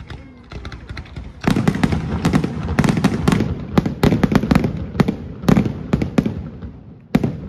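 Aerial fireworks display: a rapid barrage of shell bursts and bangs with a low rumble, dense from about a second and a half in, thinning out, then one last sharp bang near the end.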